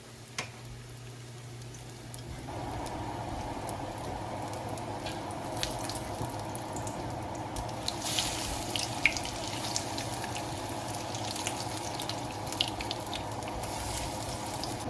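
Zucchini fritters frying in hot vegetable oil: a steady sizzle that grows louder about two and a half seconds in, with scattered popping crackles that become more frequent about halfway through.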